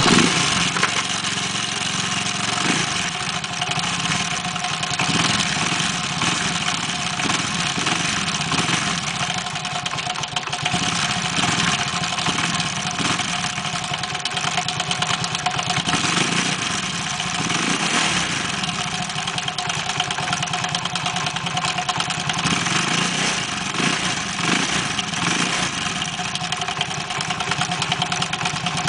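An engine starting abruptly and then running steadily at idle, an engine that is making an abnormal noise.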